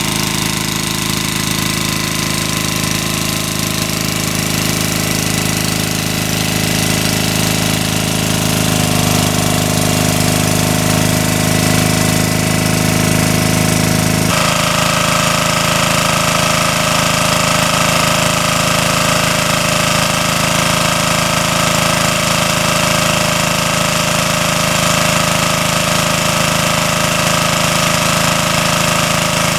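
Engine-driven water pump running steadily as it sucks water out of a pond, its tone shifting abruptly about nine and fourteen seconds in.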